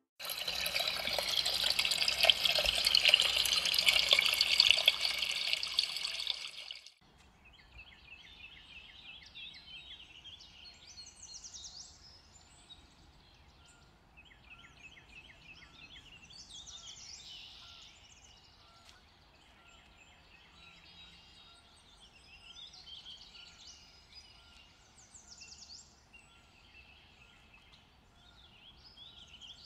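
Water spilling from a pool's sheer waterfall feature into the pool, a steady splashing rush that cuts off abruptly about seven seconds in. After that, birds chirp and trill over a faint outdoor background.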